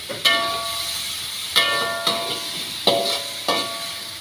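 Metal spatula knocking and scraping against a metal wok during stir-frying of garlic, chili and tomato in oil; about five sharp knocks, each ringing briefly, over a faint sizzle.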